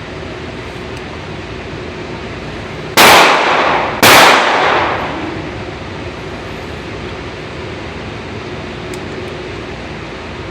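Two gunshots about a second apart, each loud and sharp with a short echoing tail, over a steady background hiss.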